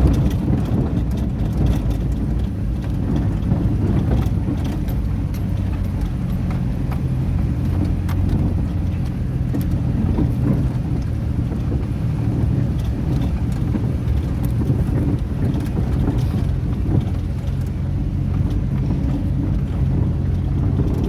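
Boat engine running at a steady speed, a constant low drone.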